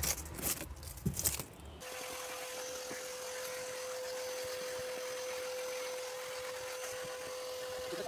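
Brief rustling and clicks of dry leaves being picked off car carpet. Then, from about two seconds in, a Gaocheng portable vacuum cleaner runs with a steady hum as its hose nozzle is drawn over the carpet.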